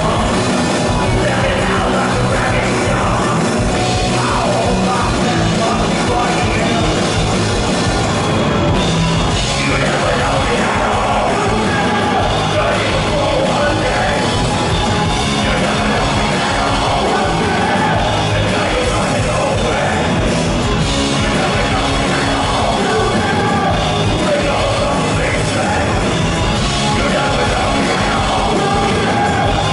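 Rock band playing live at a steady loud level, with drums, electric bass guitar and keyboard.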